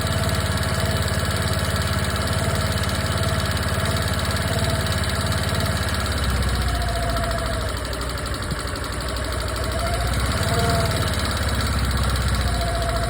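Suzuki Address 125 scooter's single-cylinder four-stroke engine idling steadily on a new scooter, with a thin whine that wavers in pitch over the running engine: the abnormal noise the owner is concerned about.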